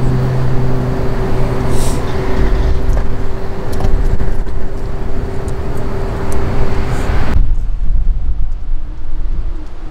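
Loud, gusting wind rumble on the microphone with a steady low hum underneath. About seven seconds in the sound cuts abruptly to a duller wind rumble.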